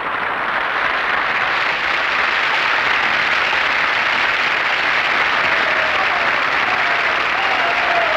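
Audience applause, swelling over the first couple of seconds and then holding steady.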